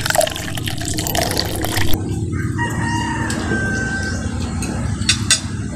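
Noodles being slurped noisily for about two seconds, then a rooster crowing in the background.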